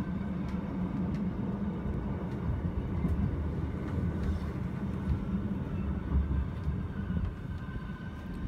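Bernina Express train running along the track, heard from inside the carriage: a steady low rumble of the running gear with a faint high whine.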